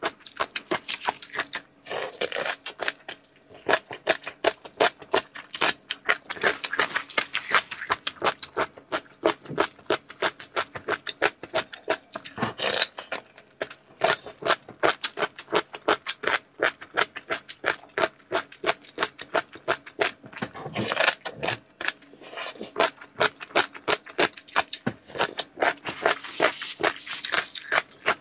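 Close-up eating and food-handling sounds: a gelatinous piece of seafood in chili oil squeezed and pulled apart by gloved fingers and chewed, a rapid run of wet, sticky clicks and crackles with louder squelching bursts every few seconds.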